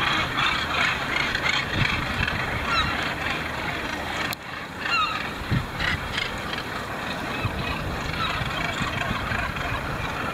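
A dense chorus of northern gannets calling at once overhead, many short harsh calls overlapping, over a low rumbling noise of wind and sea. The sound briefly drops out about four seconds in.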